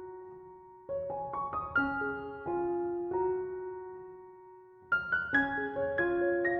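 Soft solo piano music: gentle phrases of single notes and chords that ring and fade, with a pause on a held chord in the middle.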